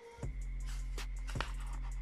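Background music: a steady bass line comes in about a quarter second in, with sharp percussion hits repeating over it.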